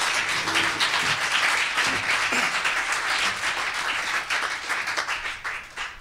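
Audience applauding: many hands clapping together, easing off near the end.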